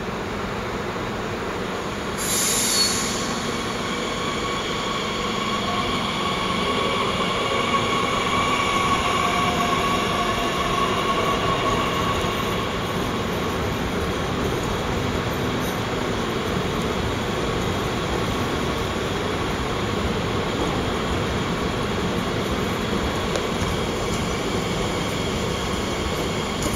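Abellio ET 442 (Bombardier Talent 2) electric multiple unit moving slowly through the station hall, with a steady high whine and squeal over the rumble of the train. A short hiss sounds about two seconds in.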